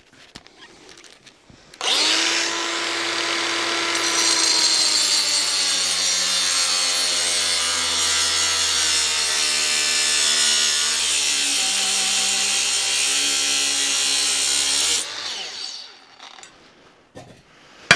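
Milwaukee angle grinder with a diamond blade starting up about two seconds in and cutting through a 3/4-inch steel coil spring: a steady motor whine under a loud grinding hiss. It is switched off near the end and winds down within about a second.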